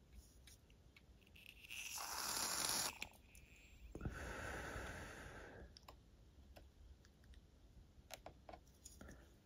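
Faint small clicks and taps of fine tweezers working a tiny photo-etch railing on a model's wooden deck, with two longer breathy rushes of noise, the first about two seconds in and the second starting suddenly about four seconds in.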